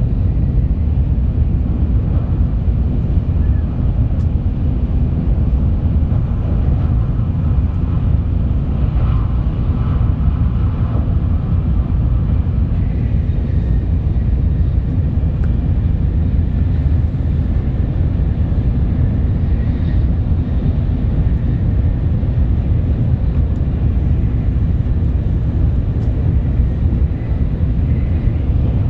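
Shinkansen bullet train running at speed: a steady, loud low rumble that does not change.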